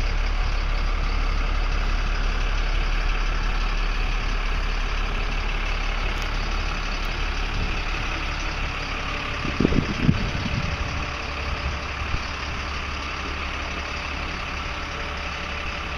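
Box truck's engine idling steadily, with a brief cluster of low thumps about ten seconds in.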